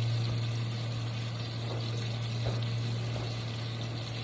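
Oil sizzling and bubbling steadily in a frying pan where chicken cutlets, zucchini and halved tomatoes are cooking, over a steady low hum.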